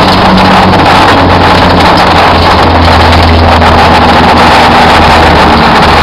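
Race car engine running hard, very loud and overdriven on the microphone. Its pitch holds fairly steady and steps about two seconds in and again near the end.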